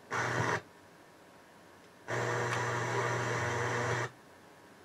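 Harman Kardon Citation 23 FM tuner heard through speakers while being tuned between stations: a short burst of static hiss with a low hum, a sharp drop to near silence as the interstation muting cuts in, then about two seconds of hiss and hum before it mutes again.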